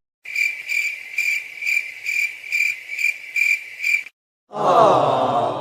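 Cricket chirping sound effect, the stock cue for an awkward silence: a steady, high chirp repeating about twice a second, cutting off about four seconds in. After a brief gap a louder, drawn-out sound falling in pitch begins near the end.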